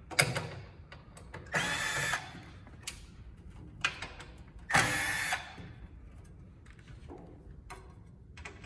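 Power drill-driver whirring in two short bursts about three seconds apart, backing out the screws that hold a toolbox drawer, with a few sharp clicks in between.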